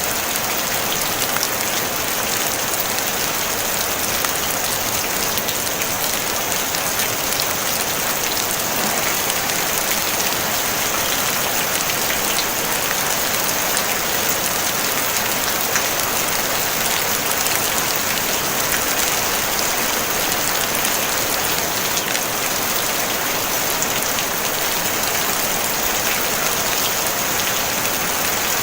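Steady rain falling on a tin roof: an even hiss of many drops with fine pattering ticks, no thunder.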